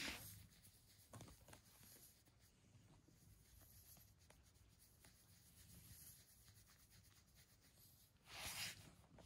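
Quiet, soft rubbing and rustling of a hand scratching a cat's chin and cheeks through its fur, with a louder rustle about eight seconds in.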